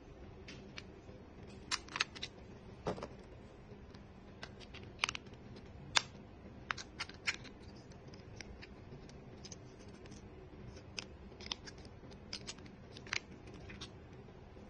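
Faint, irregular sharp clicks and taps of a small plastic sensor casing being handled and its battery compartment opened.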